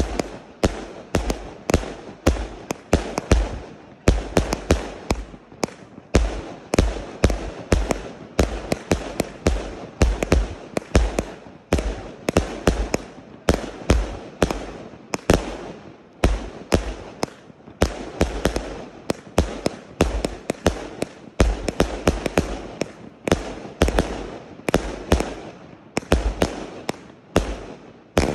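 Aerial fireworks going off in rapid succession: a continuous string of sharp bangs, about two a second, as shell after shell bursts overhead.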